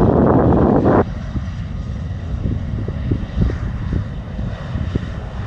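Distant jet airliner rolling out on the runway after landing, its engines giving a steady low rumble with a faint high whine. Wind buffets the microphone loudly for the first second, then cuts off suddenly.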